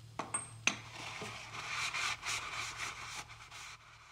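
Handling noise: two sharp clicks in the first second, then irregular scratchy scraping and rustling over a low steady hum.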